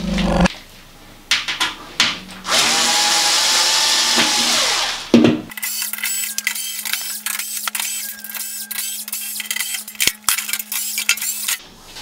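A cordless electric screwdriver runs steadily for about two and a half seconds, backing a screw out of an oven's sheet-metal backplate, and its pitch falls as it winds down. Then comes a rapid run of clicks and metallic rattles over a steady low hum as more screws come out and the panel is worked loose.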